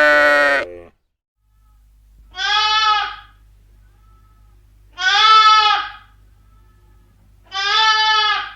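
A sheep bleating three times, each call lasting under a second with a pause of about two seconds between them. The tail of a longer animal call ends just under a second in.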